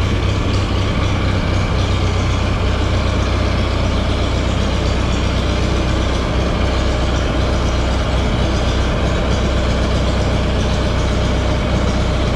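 Minneapolis Moline ZB tractor engine idling steadily.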